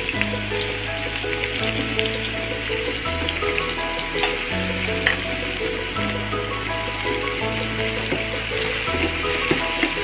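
Chopped onions sizzling and crackling as they fry in oil in a steel pan, stirred now and then, over background music with slow held notes.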